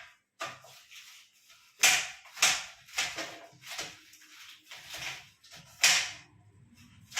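Knife chopping salad vegetables on a cutting board: a series of sharp chops at uneven spacing, roughly one or two a second, with some louder strokes among lighter ones.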